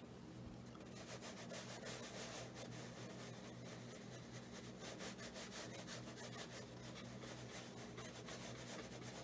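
Watercolour brush bristles scratching and swishing across paper in a rapid run of short, quick strokes, faint.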